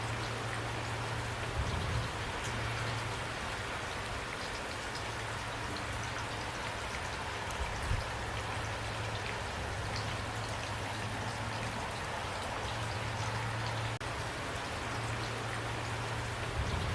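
Steady rain falling, an even hiss with scattered individual drops ticking, over a low hum that comes and goes.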